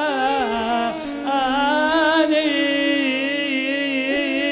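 Arabic song: a male voice sings long, drawn-out melismatic vowels with a wide vibrato, in two phrases with a short break about a second in, over steady held backing chords.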